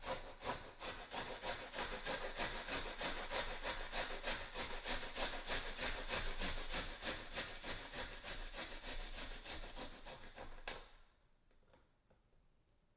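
Fresh ginger root being grated on the smallest holes of a stainless steel box grater: a quick, steady rhythm of scraping strokes that stops suddenly about eleven seconds in.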